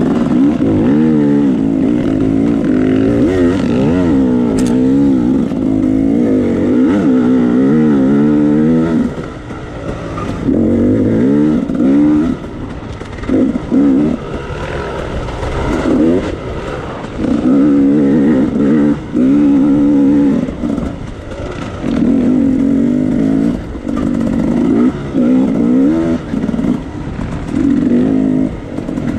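Off-road dirt bike engine under hard throttle, held high for the first several seconds. It then rises and falls in a run of short surges as the throttle is opened and shut again and again.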